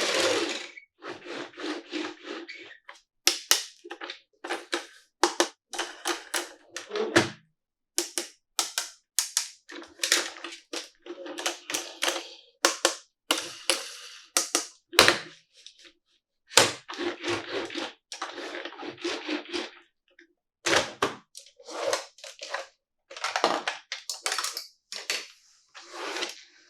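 Hands tapping and handling a plastic toy car and its packaging: a long irregular run of taps, clicks and crinkly rustles, with a few louder knocks.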